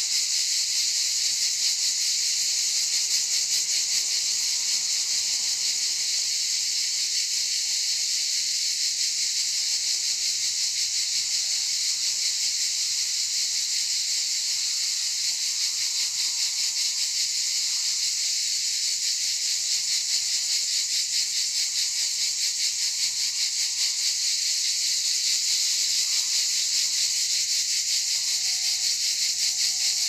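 A chorus of cicadas singing: a steady, high-pitched, buzzing drone.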